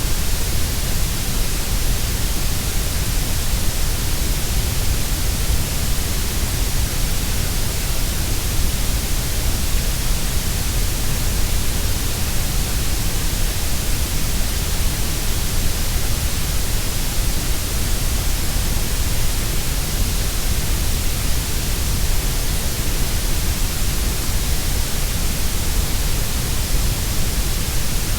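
Steady synthetic grey noise: an even hiss with no tones or changes, fuller in the deep bass and the treble than in the middle.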